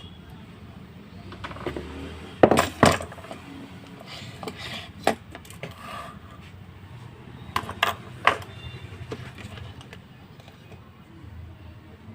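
Small metal tools and wiring parts being handled while connecting a wire to a switch, giving a handful of sharp clicks and knocks: two about two and a half seconds in, one near five seconds, and three close together around eight seconds.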